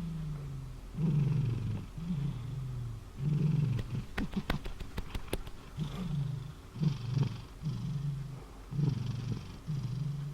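Domestic cat snoring in deep sleep: a low, rasping snore on each breath, about one a second. A few sharp clicks come near the middle.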